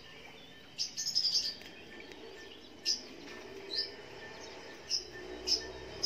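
Small bird giving short, sharp high chirps, some dropping in pitch, about one every second, with a quick run of several together about a second in.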